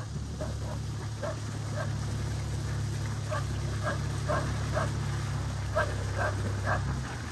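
A dog barking in short, repeated yaps, unevenly spaced, over a steady low hum that stops shortly before the end.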